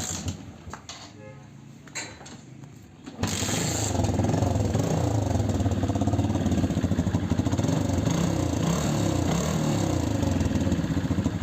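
A TVS Victor 3-valve's single-cylinder four-stroke engine. After about three seconds of quieter clicking, it starts and settles into a steady idle. It runs without the knocking it had before, now that the timing chain tensioner and valves have been repaired.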